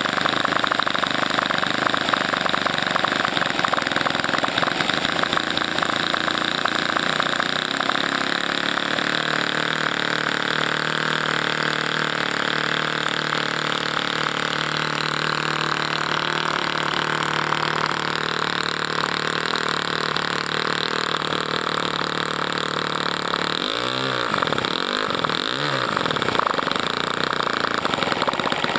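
O.S. Surpass 52 four-stroke glow engine on a straight pipe, running steadily on a model biplane with a slight drop in speed partway through. Near the end the throttle is blipped twice, the engine note swinging quickly up and back down each time.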